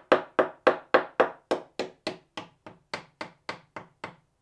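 Screwdriver tapping on glass-fibre tabbing at the foot of a yacht bulkhead, a steady run of quick taps about four a second that turn quieter about two seconds in. It is a tap test comparing solid, well-bonded laminate with a hollow-sounding patch where the secondary bonding has failed and come away.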